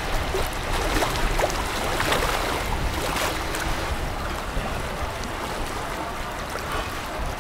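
Harbour tugboat working against a container ship's hull: a steady low rumble with a rushing, water-like noise over it, and a few faint clicks in the first few seconds.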